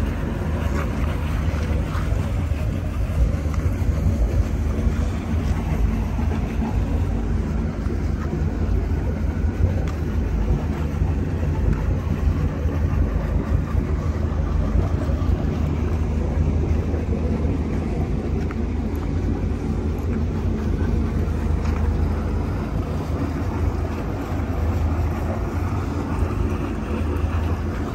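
Twin Cummins diesel inboard engines of a 2001 Luhrs 40 sportfishing boat idling steadily with an even, low hum. They are running well after starting right up.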